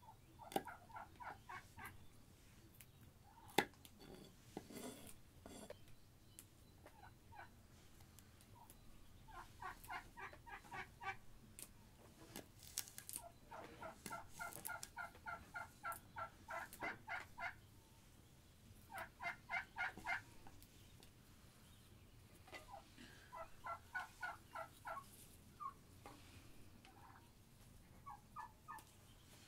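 Domestic fowl calling in rapid runs of short, evenly spaced notes, about five a second, in several bouts of one to three seconds each. There is a sharp knock about three and a half seconds in.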